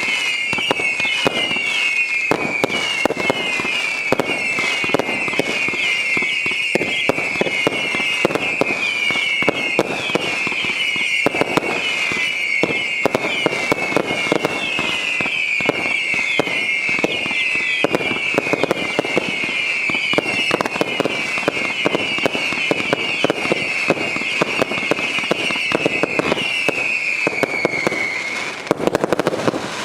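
Garden firework barrage going off non-stop: a dense run of bangs and crackles under a steady stream of short, falling whistles. It stops abruptly about a second before the end.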